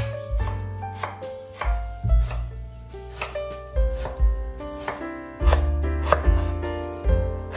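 Chef's knife chopping a raw root vegetable on a wooden cutting board: a run of uneven sharp chops, a few a second. Background music with piano-like notes and a bass line plays underneath.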